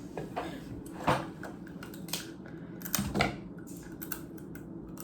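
Hard crab shells cracking and snapping as whole cooked crabs are broken open to eat. Several sharp, irregular clicks and cracks.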